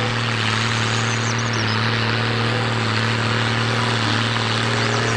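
Tractor engine idling: a steady low drone with a constant hum and hiss, with no change in speed.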